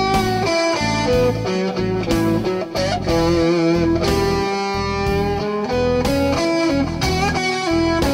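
Electric guitar playing a blues turnaround in E across the A7 and E7 changes, full of half- and whole-step string bends and vibrato, over a backing track.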